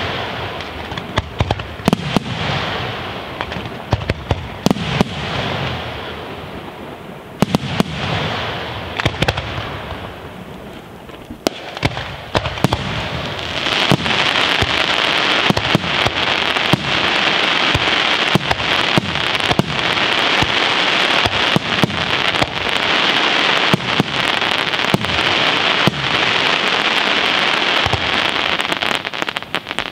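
Aerial fireworks shells bursting overhead, with sharp bangs and crackle between them. About twelve seconds in, a dense, continuous crackling with rapid bangs builds and holds, then drops off near the end.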